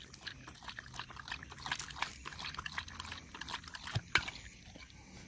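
A dog lapping water from a collapsible bowl in quick wet strokes, with a couple of sharper clicks about four seconds in.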